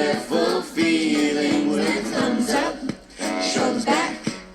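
A children's action song: a singing voice with music.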